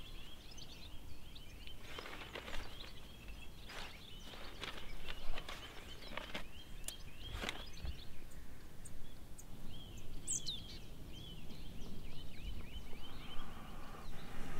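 Small birds chirping over and over in the background, with several short rustles of a paper brochure being handled and opened.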